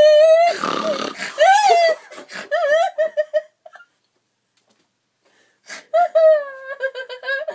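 A person making high-pitched wordless vocal noises, with a loud breathy rasp about half a second in. The noises stop for about two seconds in the middle and start again near the end.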